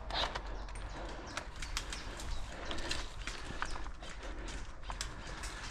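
Footsteps crunching through undergrowth: irregular sharp cracks and rustles, a few per second.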